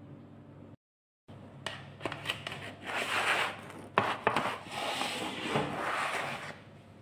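Pizza slid out of a metal baking tray onto a wooden board: the crust scraping and rubbing against the tray, with clicks and knocks of the tray, the sharpest about four seconds in.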